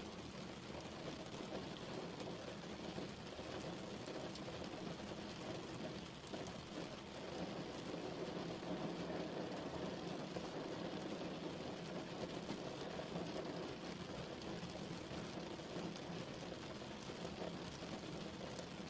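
Steady rain falling and pattering on a surface, a dense even hiss with a full low body.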